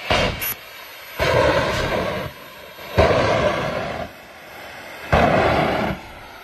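Jet engine mounted on a horse buggy firing repeated flame blasts from its exhaust: three whooshing bursts, each about a second long and about two seconds apart, after a short one at the very start.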